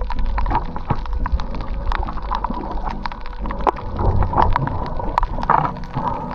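Underwater sound over a coral reef: a dense, irregular crackle of sharp clicks, the crackle of snapping shrimp, over a faint steady hum.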